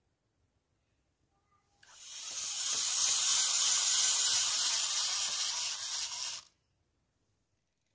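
A loud, steady hiss that starts about two seconds in and cuts off sharply about four and a half seconds later.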